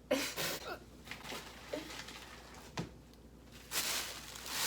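A girl hiccuping: a sudden breathy catch right at the start and a shorter, sharper one near the middle, then a brief hiss of noise near the end.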